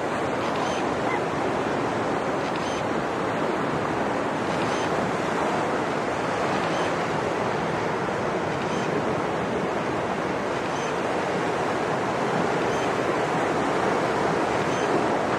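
Steady surf of ocean waves breaking and washing on the beach. A faint camera shutter clicks about every two seconds.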